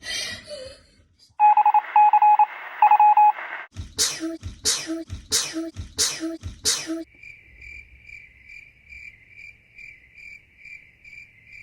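Electronic tones and beeps: a loud buzzy tone pulsing three times, then six short sharp beeps about half a second apart, then a fainter steady high tone pulsing about four times a second.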